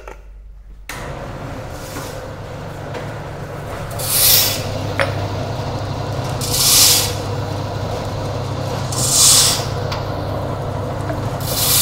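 Small automatic pouch packing machine starting up about a second in and running with a steady low motor hum. A short hiss comes about every two and a half seconds as each pouch cycles, with one sharp click near the middle.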